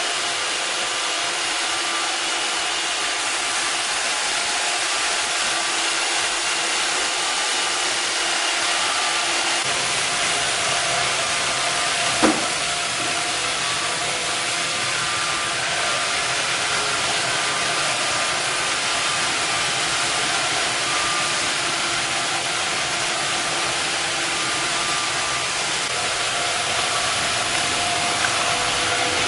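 Robot vacuum cleaner running: a steady whirring hiss with a few thin, faint whines, and a single sharp knock about twelve seconds in.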